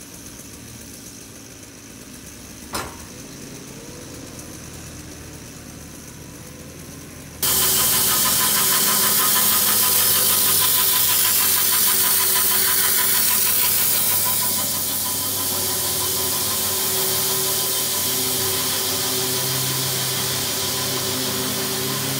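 A loader's engine running, with a sharp click about three seconds in. About seven seconds in, the sound cuts abruptly to a much louder sawmill cutting through a log: a steady sawing noise over a hum, easing slightly about halfway through.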